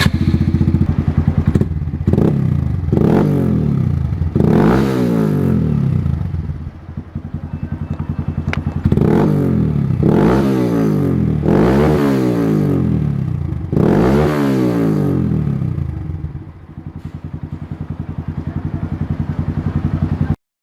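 Honda MSX125 (Grom) single-cylinder four-stroke engine breathing through an aftermarket exhaust, idling and blipped about eight times, each rev rising and falling back to idle, with two longer, higher revs. It settles to a steady idle near the end.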